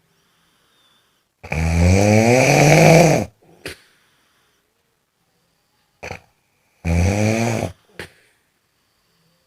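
Snoring: two loud snores, a long one starting about a second and a half in and a shorter one about seven seconds in. Brief puffs of breath come around them, with silence between the breaths.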